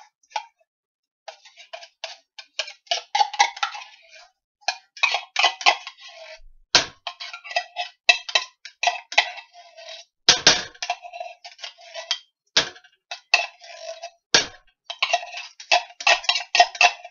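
A metal utensil scraping thick condensed soup out of a tin can into a pot: quick runs of short scrapes and clinks, with a few sharper knocks spread through.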